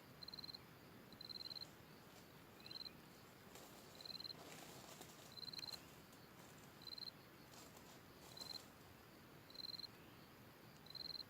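Cricket chirping steadily, short high-pitched pulsed chirps repeating about once a second. A faint rustling noise comes in about halfway through.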